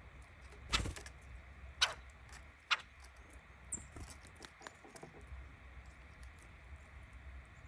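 Red-bellied woodpecker pecking at a suet feeder: three sharp knocks about a second apart, then a run of lighter taps.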